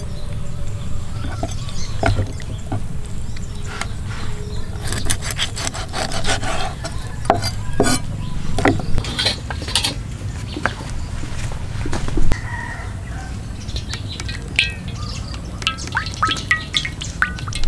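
Cleaver cutting up a raw whole chicken on a wooden chopping board: the blade scraping and slicing through skin and joints, with sharp knocks where it hits the board. Short bird chirps come in near the end.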